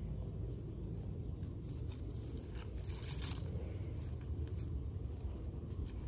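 Dry roots and dead leaves of a bearded iris clump crackling and tearing as hands pull the rhizomes apart, with a cluster of crackles about three seconds in and a few scattered ones around it.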